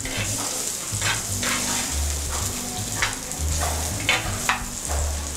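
Chopped onions and garlic sizzling in hot olive oil in a frying pan, stirred with a spoon that scrapes across the pan bottom every second or so.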